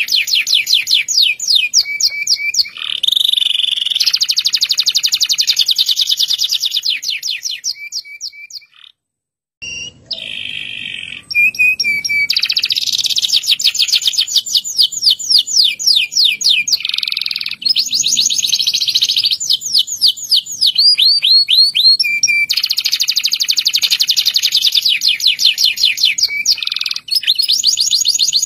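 Local canary singing long, fast rolling trills of rapidly repeated high notes, phrase after phrase, with a brief silence about nine seconds in.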